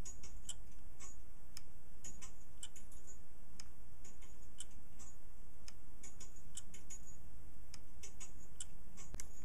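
Homemade Hipps clock movement ticking: a wire pawl swung by the pendulum pushes a toothed ratchet wheel round a tooth at a time. It makes sharp mechanical clicks, about two a second.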